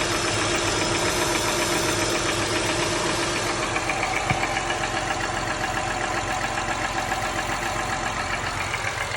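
2004 Acura TL's 3.2-litre V6 idling after a cold start with a steady, rapid knocking from the engine, which the owner wonders may need a valve adjustment.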